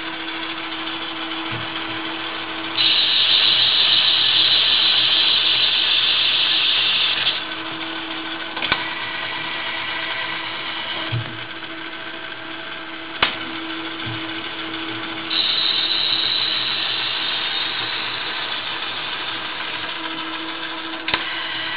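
Hardinge HLV-H toolroom lathe running steadily while single-point threading a 1-inch, 14 TPI thread under a servo electronic leadscrew. A louder high hiss comes in twice, about 3 to 7 seconds and 15 to 21 seconds in, with a few sharp clicks in between.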